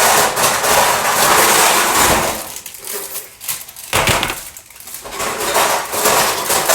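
Baking pans clattering and knocking together as they are rummaged out of a cupboard, with a sharp knock about four seconds in.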